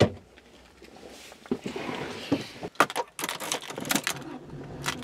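A driver getting into a Subaru car: a sharp click as the door opens, rustling as he settles onto the seat, then a run of knocks and clicks from the door and the keys going into the ignition.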